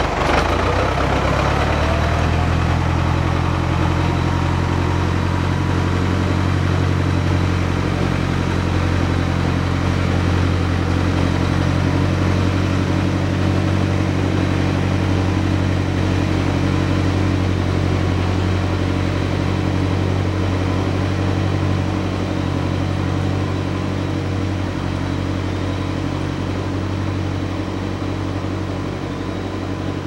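Farm tractor engine running steadily under a carried load of boards, growing a little quieter over the last several seconds as it moves away.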